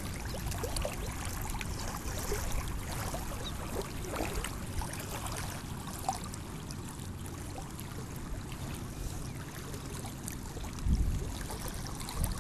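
Small wind-driven waves lapping and splashing against a stony lake shore, with wind rumbling on the microphone and a stronger gust about eleven seconds in.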